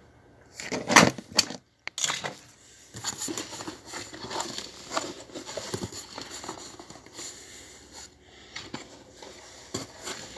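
Handling noise from a phone camera being moved about over a desk and cardboard packaging: irregular rustling, crinkling and light knocks, loudest about a second in.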